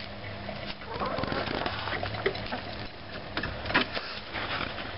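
Hens foraging in dry oak leaves and dirt: a crackling rustle broken by many sharp clicks of pecking and scratching.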